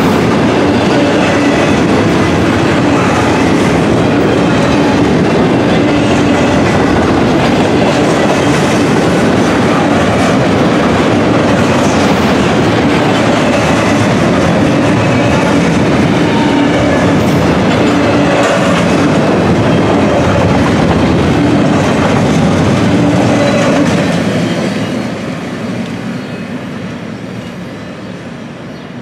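Double-stack intermodal well cars of a freight train rolling past, their steel wheels running on the rails in a loud, steady rush. About 24 seconds in the last car goes by and the sound fades as the train moves away.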